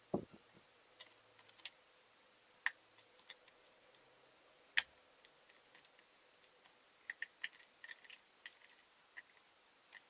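Scattered light clicks and taps of small tools, screws and plastic parts being handled as a ThinkPad T420 laptop is taken apart. There is a soft knock at the start, two sharper clicks a couple of seconds apart, and a quick run of small clicks near the end.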